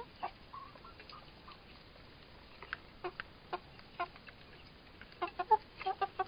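Domestic hens clucking: short calls, a few spaced out in the middle and a quicker run of them near the end.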